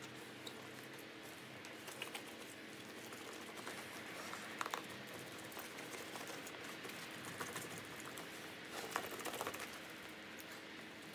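Gloved hands handling a latex drysuit neck seal and rolling it down with a small hand seam roller: scattered soft clicks and rubbery rustles, with a few louder crinkly bursts about halfway and again near the end, over a faint steady room hum.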